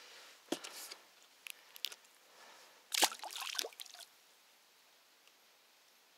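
Short splashes and sloshes of water, a few light ones in the first two seconds and a louder cluster about three seconds in, then quiet.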